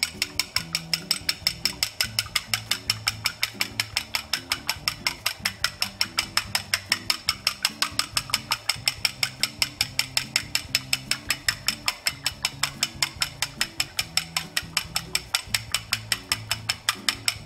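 A fork beating eggs in a ceramic bowl, its tines clicking against the side of the bowl in a fast, even rhythm of about five strokes a second.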